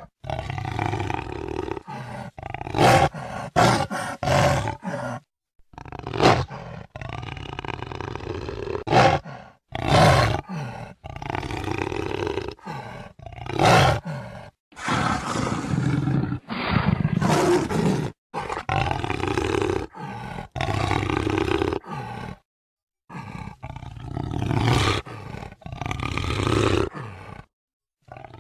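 Jaguar roaring in a long series of hoarse calls, each a second or two long, some much louder than others. The sound cuts abruptly to silence several times between calls, as in a spliced-together recording.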